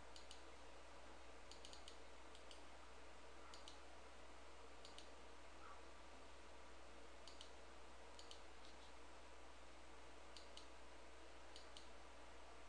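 Computer mouse clicking faintly, short sharp clicks coming singly and in quick pairs or threes every second or two, over a steady low hum.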